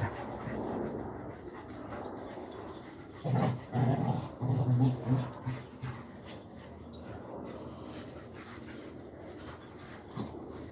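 Dogs at play making low vocal noises, with a run of loud bursts from about three to six seconds in.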